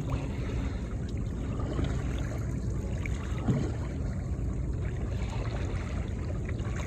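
Seawater lapping and trickling against a kayak's hull as it drifts, over a steady low rumble.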